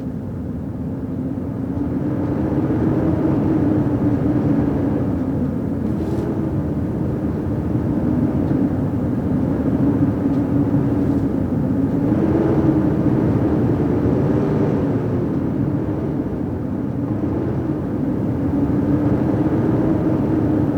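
Howling blizzard wind: a steady rushing noise with a low moaning tone that wavers up and down, swelling and easing in gusts.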